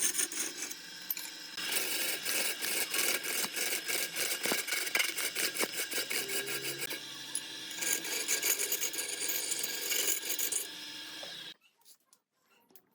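A tool scraping and cutting wood turning on a wood lathe, a dense rasping sound that stops abruptly near the end, leaving only a few faint ticks.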